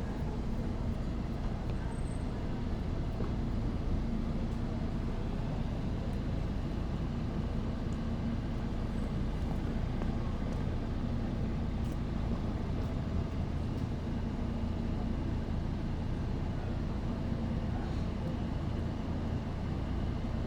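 Busy city street ambience: a steady rumble of road traffic with a continuous low hum, and a few faint ticks scattered through it.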